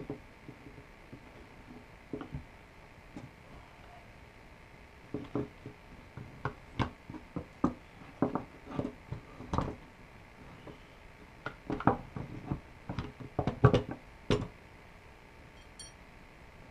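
Irregular clicks and knocks of small metal and plastic rifle parts and tools being handled while a trigger guard is fitted to an AR-style rifle's lower receiver. A few light clicks at first, then a denser run of knocks starting about five seconds in and stopping shortly before the end.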